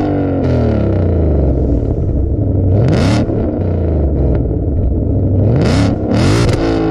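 A 2020 Shelby GT500's supercharged 5.2-litre V8, heard at its quad tailpipes through a modified exhaust with an X-pipe. It idles and is revved sharply three times, each rev dropping back to idle, sounding healthy.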